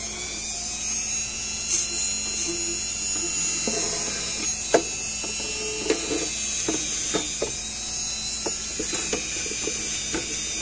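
Handheld rotary tool spinning a brush attachment with a steady high whine. The brush knocks and scrapes irregularly against the plastic case of a solar fence energizer as cobwebs are brushed out of it.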